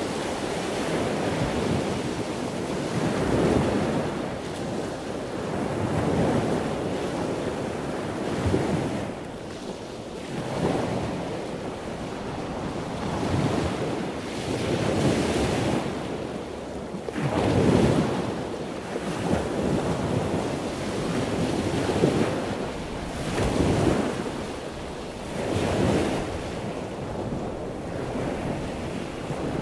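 Gusty wind blowing across the microphone, a loud rushing noise that swells and drops every couple of seconds.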